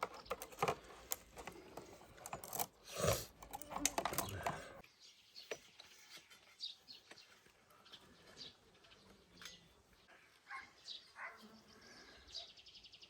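Clattering and knocking for about five seconds. Then it turns quiet, with birds chirping now and then.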